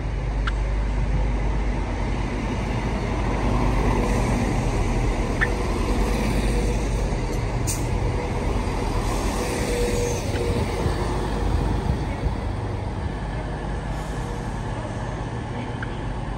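Diesel train's engine running with a steady low rumble, a few faint clicks over it.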